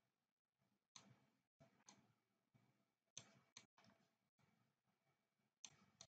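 Faint computer mouse clicks: about six single clicks scattered over the quiet, made while an icon is selected, dragged and resized on screen.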